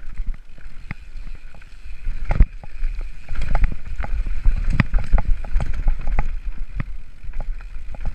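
Mountain bike clattering down a rocky trail: irregular knocks and rattles from the frame and chain, tyres hitting stones, with a low wind rumble on the camera microphone. The knocking gets heavier and louder about three seconds in as the ground roughens.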